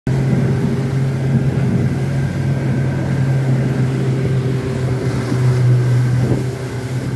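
Motorboat engine running steadily under way, a constant low drone with a rushing noise over it.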